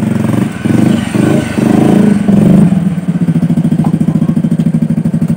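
Bajaj Discover motorcycle's single-cylinder four-stroke engine running, revving up and down unevenly for the first two to three seconds, then settling into a steady, evenly pulsing idle. It cuts off abruptly at the end.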